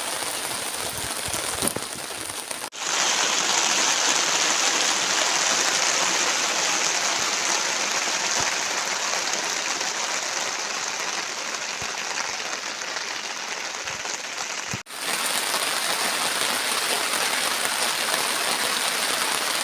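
Heavy storm rain pouring down in a steady dense hiss. It breaks off abruptly twice, about three seconds in and about fifteen seconds in, and the stretch between is louder and hissier.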